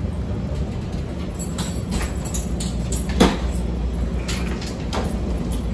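Steady low hum inside a standing CTA 5000-series rapid transit car, with a few scattered knocks, the loudest about three seconds in.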